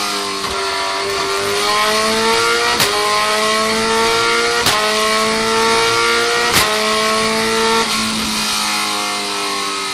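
Supercharged Kawasaki Ninja H2 engine on a dyno pull, revving steadily higher for about seven seconds, with three sharp cracks along the way. Near the end the throttle closes and the revs fall away.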